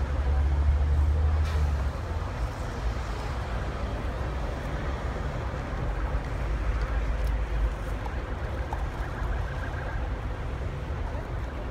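Steady low rumble of idling buses and road traffic under the general hubbub of a large outdoor crowd. The deepest part of the rumble drops away about two seconds in.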